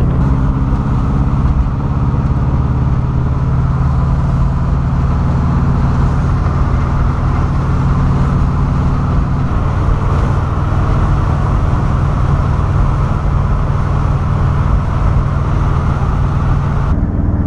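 Turbocharged Subaru WRX flat-four engine in a VW split-window bus, running steadily at cruising speed, heard from inside the cab with road and wind noise. Its tone shifts slightly about halfway through.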